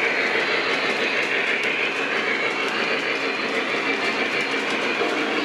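Lionel O-gauge model train, a Union Pacific Big Boy steam locomotive followed by freight cars, rolling past on three-rail track: a steady rumble of wheels with light clicking.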